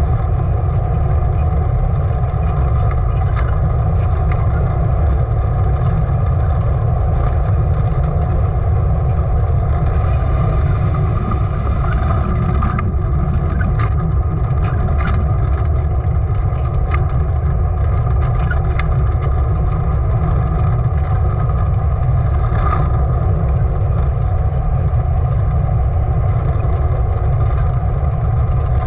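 Wind rushing over the microphone of a camera mounted on an unpowered soapbox car running downhill at 30 to 50 km/h. The wind makes a steady deep rumble, over the hiss of the wheels rolling on asphalt. Sharp clicks and rattles come from the bodywork over bumps, more of them in the middle of the run.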